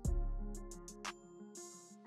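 Background music: a deep bass hit at the start that fades away under held chords, with a run of short high ticks.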